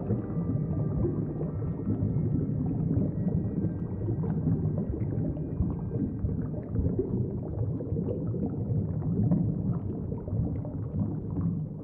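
Low, churning water sound with bubbling and gurgling, as of moving water. A few faint held tones fade away in the first second or two.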